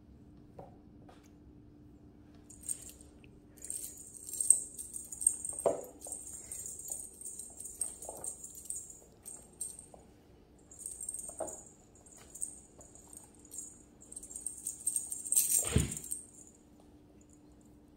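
Small bells on a feather wand cat toy jingling in bursts as the toy is shaken and batted at, with a thump near the end.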